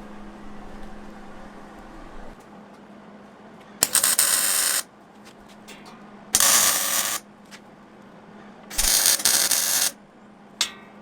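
MIG welder running solid wire with shielding gas, laying short welds on a steel plate stove: three bursts of arc noise about a second each, with pauses between.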